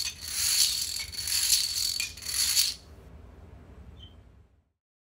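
A field of dominoes toppling in a dense, rapid clatter of many small clicks that dies away about three seconds in. After that only a faint low hum remains, and it cuts off near the end.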